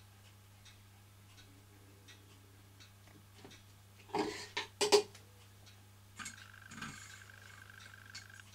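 A clatter of several sharp knocks, loudest about five seconds in, as objects are handled. It is followed by a steady high tone lasting about two seconds, over faint scattered ticking.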